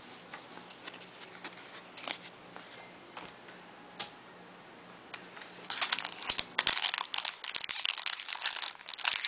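Soft clicks of trading cards being handled, then from about six seconds in a card pack's plastic wrapper crinkling loudly as it is torn open.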